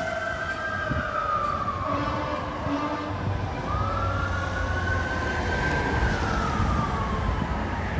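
Federal Q mechanical siren on a fire ladder truck, winding down, then winding back up about four seconds in to a peak and sliding down again. The truck's engine is running underneath.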